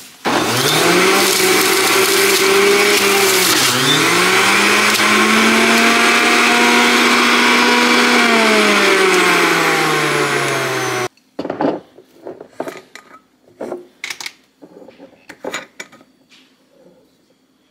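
Qcen electric juicer's motor running while juicing carrots. It climbs in pitch, dips sharply about four seconds in as it takes the load, climbs again, then winds down and cuts off suddenly about eleven seconds in. A few knocks and clatters of the machine being handled follow.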